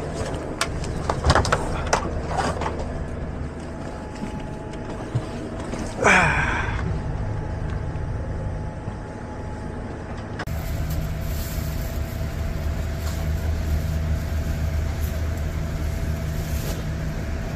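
Steady hum of a parked airliner's cabin air system, with scattered clicks and knocks in the first few seconds and one brief loud noise about six seconds in. From about ten seconds on the hum grows louder and brighter.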